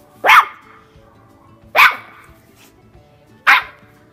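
Yorkshire terrier puppy barking three times, sharp high yaps about a second and a half apart, each dropping in pitch.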